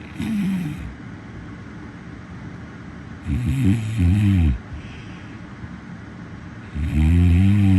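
A person snoring: three low-pitched snores about three seconds apart, the first short and the later two longer and louder. A steady hiss runs underneath.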